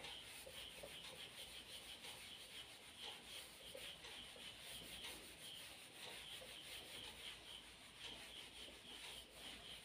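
Faint rubbing of a cloth wiping marker writing off a whiteboard, in quick repeated strokes.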